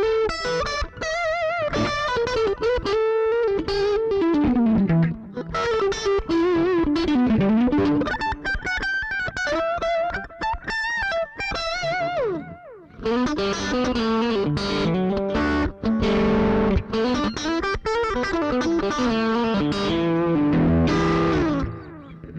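Strat-style electric guitar played through a Behringer GDI21 amp-simulator pedal: single-note lead lines with wavering vibrato and bends, a long slide down about halfway, then quicker, denser picked phrases.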